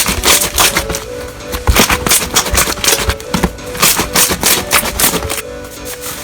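Slime being squeezed and pressed, giving dense, irregular crackling clicks and pops, over steady background music.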